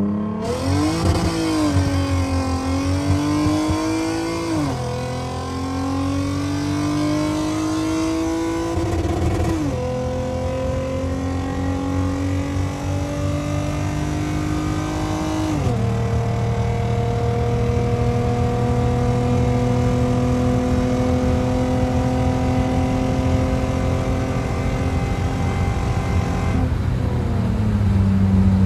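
Toyota Mark X V6 engine at full throttle, heard from inside the cabin: the revs climb and drop sharply at each upshift, about 5, 10 and 16 seconds in. The revs then rise slowly in a tall gear and fall away near the end.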